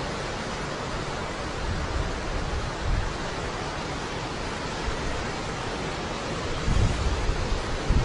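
Ocean surf and wind making a steady rushing hiss, with gusts of wind buffeting the microphone near the end.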